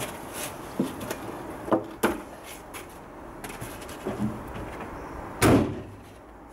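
A Toyota pickup's tailgate slammed shut about five and a half seconds in, the loudest sound, after a few lighter knocks and clunks of metal being handled.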